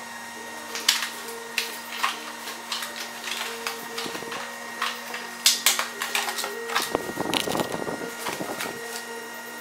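Hard plastic drill carrying case being handled: scattered clicks and knocks, with a longer rustling scrape about seven seconds in. A faint steady hum runs underneath.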